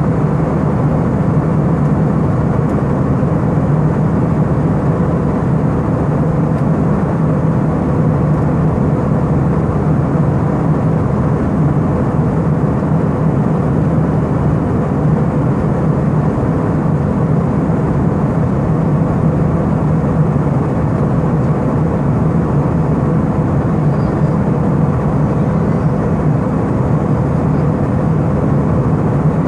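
Steady cabin noise of an Airbus A319 airliner in flight: an even rushing of engines and airflow with a low hum underneath.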